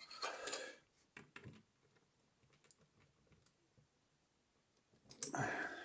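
Small metal clicks and rattles from handling a padlock and lock pick: a short rattle at the start, a few light clicks about a second and a half in, and another rattle near the end.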